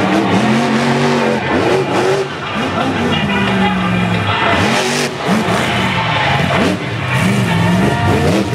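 Grinder monster truck's supercharged V8 revving hard, its pitch rising and falling over and over as the truck is driven.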